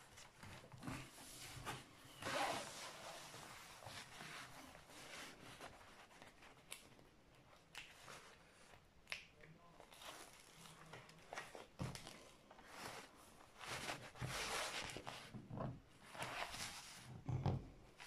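Rustling and crinkling of a large rolled diamond-painting canvas and its protective paper sheet being unrolled and smoothed flat by hand, in irregular bursts with a few small clicks.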